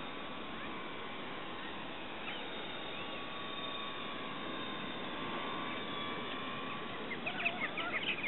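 Distant engine of a radio-controlled aerobatic model plane droning steadily in flight, over a steady hiss. About seven seconds in, a burst of squawking bird calls starts up and grows louder.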